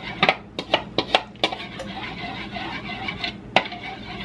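A spoon stirring melted butter and grated garlic in a bowl, clinking and scraping against its sides. A quick run of clinks comes in the first second and a half, then softer scraping with an occasional clink, one sharper clink near the end.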